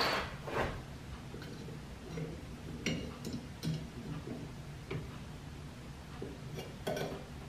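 Scattered metallic clicks and light taps from the cast-iron pulley and spindle of a steam engine's flyball governor being handled and worked with a hand tool at the hub. About seven irregular ticks over a low steady hum.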